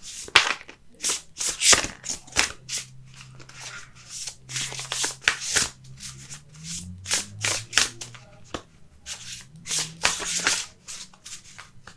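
Oracle cards being hand-shuffled: a long run of short, papery slides and flicks, about one to two a second. The cards are large and thin, hard to keep hold of while shuffling.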